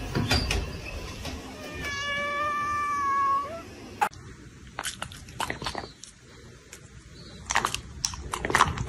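A cat giving one long meow of about a second and a half, its pitch sagging at the end. After it come a few scattered soft clicks and taps.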